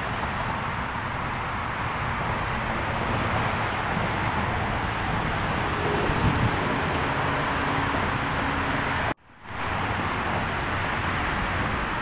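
Steady traffic noise from vehicles on a nearby road bridge, an even wash of sound that drops out briefly a little after nine seconds in.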